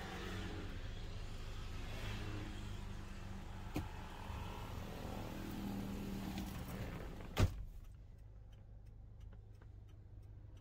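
Toyota Innova engine idling with a steady low hum, heard from inside the cabin. A light knock comes about four seconds in, and a sharp thump a little after seven seconds, after which the hum drops away and it goes much quieter.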